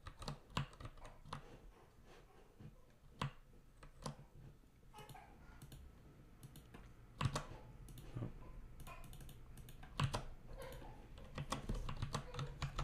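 Irregular keystrokes and clicks on a computer keyboard, faint, with a few louder taps now and then.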